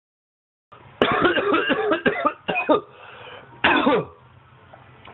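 A man coughing hard: a fit of several rough coughs in quick succession, then one more longer cough a little later.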